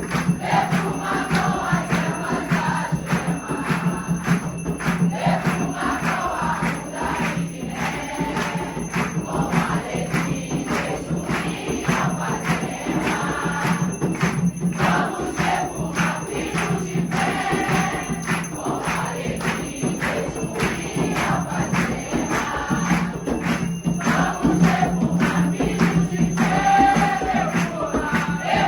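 Devotional ceremony music: a group singing a chant over dense, fast percussion with bright jingling strokes.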